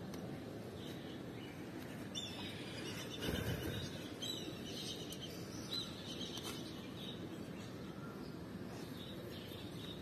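Faint steady outdoor background noise with scattered short bird chirps, and a soft low thump about three seconds in.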